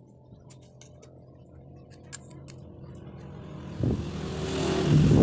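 A motor vehicle's engine drawing closer, growing steadily louder over the last couple of seconds, with a few faint clicks before it.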